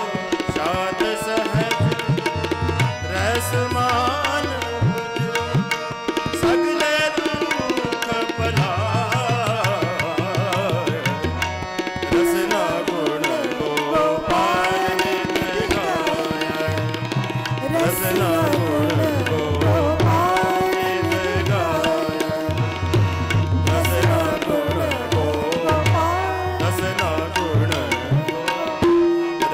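Shabad kirtan in Raag Todi: a man sings a winding melodic line over a steady harmonium, and the tabla plays throughout with deep bass-drum strokes.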